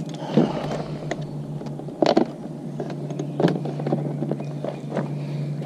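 A few sharp clicks and knocks from handling a dirt bike's clutch cable and its adjuster, over a steady low hum.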